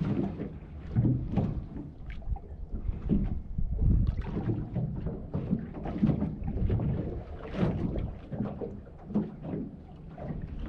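Water slapping and lapping against the hull of a small fishing boat in irregular splashes every half second or so, with a low rumble of wind on the microphone.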